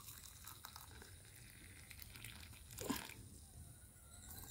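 Faint trickle of black tea poured slowly from a stainless steel camping mug into a ceramic cup, with a light rustle of the cloth gripping the hot handle and a soft knock about three seconds in.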